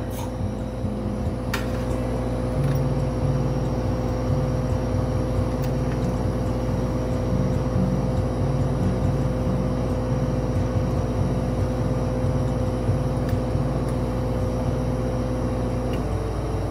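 Steady low rumble and motor-like hum of a lampworking bench with the glass torch burning, a pitched drone that wavers slightly from a few seconds in. A couple of faint ticks near the start.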